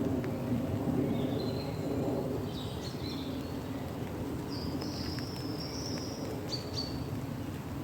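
Small birds chirping and whistling a few times, with short high calls clustered in the middle and near the end, over a steady low background rumble.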